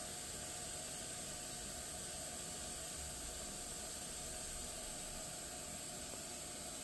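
Steady, even hiss of a quiet room with the recording's own background noise; no distinct events.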